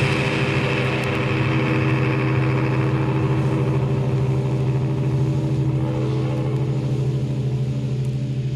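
A steady wall of distorted noise-pop guitar drone, holding one chord with a fast pulsing waver. The hiss on top thins out toward the end.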